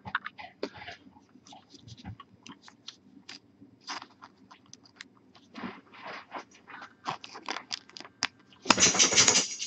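Thin plastic card sleeve and trading cards being handled: light crinkles and clicks, with a louder burst of plastic crinkling near the end.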